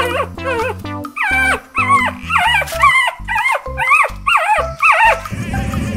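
A puppy whining and yipping in a quick string of high cries that slide up and down in pitch, about three a second, over background music. The cries stop about five seconds in and a low, steady rumble takes over.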